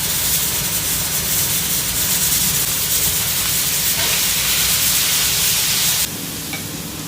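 Electric fan blowing: a steady rushing hiss with a low rumble underneath. It drops off suddenly about six seconds in, leaving a quieter background.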